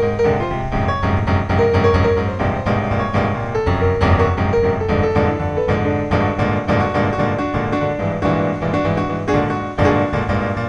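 Background music led by piano, with notes changing steadily.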